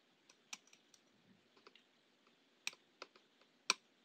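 Steel tweezer tips lightly clicking against a small circuit board and its tiny ferrite memory cores as a fine wire is threaded through them. A few faint scattered clicks, the sharpest near the end.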